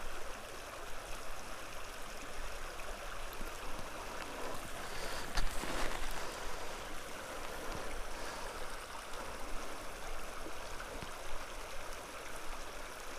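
Small mountain meadow creek flowing steadily, a constant even rush of water, with a brief knock about five seconds in.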